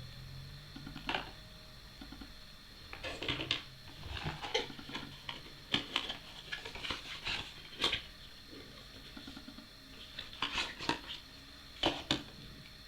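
Packaging of a tablet being opened and handled: irregular light clicks, taps and short scrapes in clusters, with the busiest stretch in the middle and a final pair of clicks near the end.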